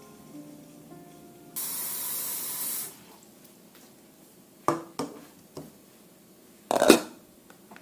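Water running briefly from a kitchen tap into a saucepan as a steady hiss, then the saucepan knocking a few times and clunking down on the countertop, the loudest clunk near the end.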